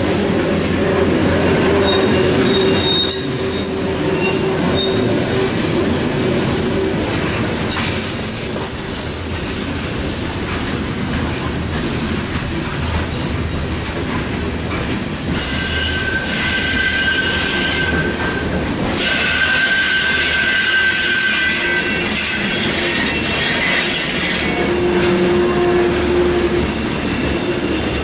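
Freight train of coal hoppers and gondolas rolling past with a steady rumble of wheels on rail, and the wheels squealing in high, steady tones that come in about halfway through and again near the end.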